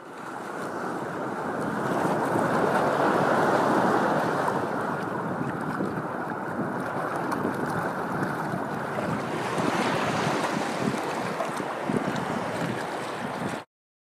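Steady rushing noise, like wind on the microphone, swelling in over the first couple of seconds and cutting off abruptly near the end.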